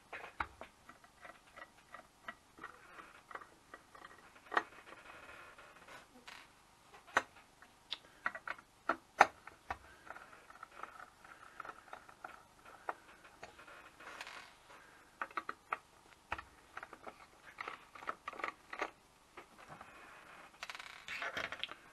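Faint, irregular small clicks and ticks of a precision Torx screwdriver working the tiny screws of a hard drive's actuator magnet, with small metal parts knocking on the drive's housing.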